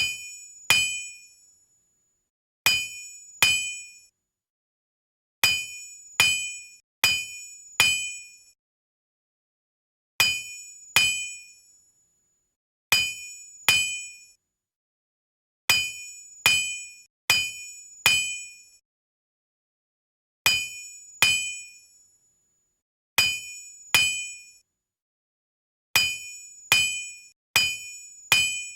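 Blacksmith's hammer striking metal on an anvil, each blow ringing out at the same pitch and fading within about a second. The blows come in pairs and in runs of four, about a second apart, with short silences between the groups.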